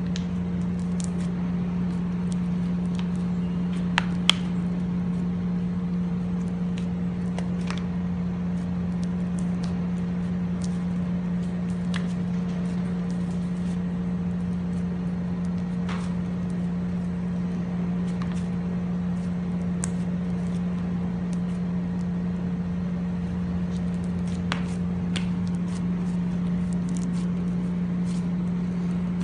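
A steady low hum that does not change, with a few faint clicks scattered through it.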